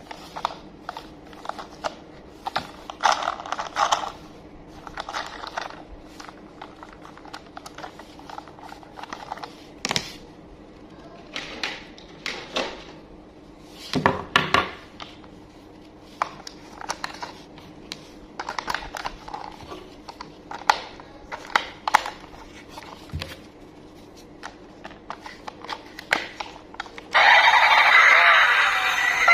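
Hands unboxing Thomas and Friends toys: scattered scrapes, clicks and rustles of packaging and toy handling over a faint steady hum. Near the end, a much louder continuous sound cuts in.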